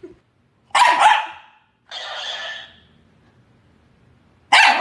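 A dog barking: a loud double bark about a second in, a longer, rougher sound right after it, and another loud bark near the end.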